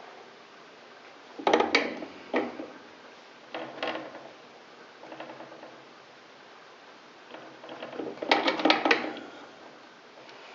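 Metal clicking and clinking from snugging up the mounting nut on a newly fitted humidifier float valve. It comes in several short spells, the longest about eight seconds in.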